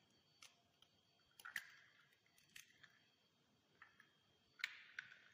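Quiet kitchen with a few faint, sharp clicks and taps as an egg is picked up from a glass bowl and handled among glassware, the sharpest tap coming near the end.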